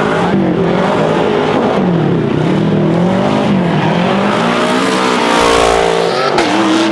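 Side-by-side UTV engine revving up and down as the machine drives close past, with a rising rev and a heavier low rumble about five seconds in.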